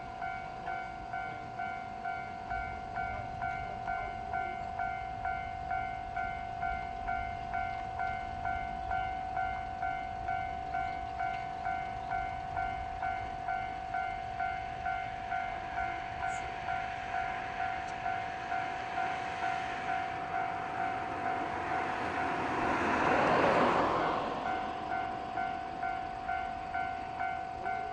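Japanese level-crossing alarm ringing in steady, even beats, with a train passing over the crossing about 23 seconds in: a rushing noise that swells to the loudest point and fades within a few seconds while the alarm keeps ringing.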